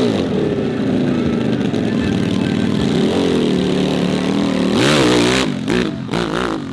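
Racing motorcycle engines revving up and dropping back through gear changes. The pitch climbs sharply about three seconds in and again around five seconds, and several quick rises and falls follow near the end.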